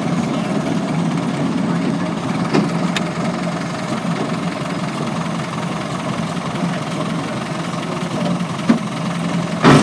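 An engine running steadily, with two sharp knocks near the end, the second louder.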